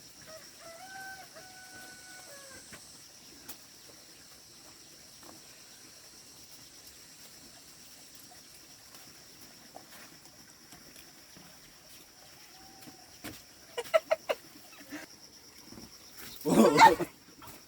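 Chickens on a farm: a rooster crows once near the start, held for about two seconds, and a few quick clucks come later. Insects hiss steadily in the background. A short, loud burst of noise comes near the end.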